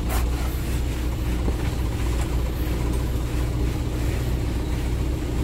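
Suzuki Carry 1000's four-cylinder engine idling steadily, being warmed up after a wash to drive off water. A brief click sounds right at the start.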